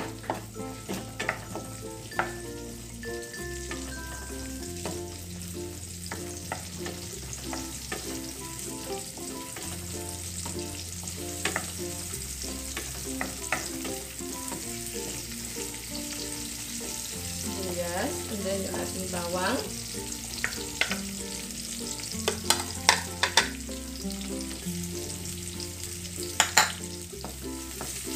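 Chopped onions sizzling in oil in a nonstick wok while a wooden spatula stirs them, scraping and knocking against the pan. The spatula clatters come thicker in the second half.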